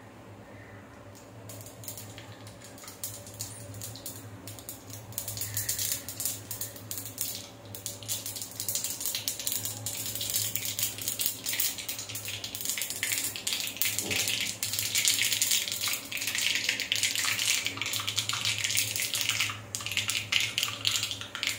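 Mustard, cumin and fenugreek seeds frying in hot oil in a small iron tadka pan, sizzling with dense crackling. The crackle builds up from about five seconds in and grows louder toward the end.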